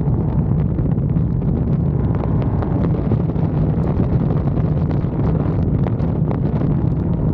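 Chrysler 6.4-litre HEMI V8 with long-tube headers and a Corsa exhaust, droning at a steady cruise with no revving. Wind buffets the microphone.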